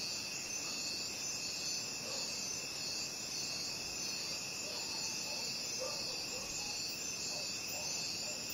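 Night chorus of crickets: a dense, steady high-pitched trilling in two pitch bands.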